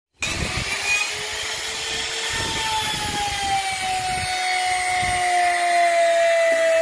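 Electric trim router running at speed and cutting along the edge of a PVC laminate sheet: a steady high whine that sinks slowly in pitch as the bit bites, over a rough cutting hiss.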